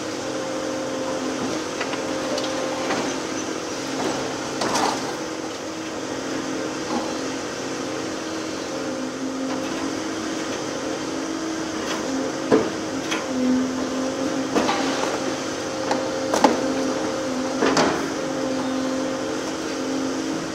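Volvo EC750E HR demolition excavator running steadily under hydraulic load, its hum stepping in pitch now and then, while its demolition shear bites into steel beams. A few sharp metallic cracks and clanks stand out, the loudest about 12 and 16 seconds in.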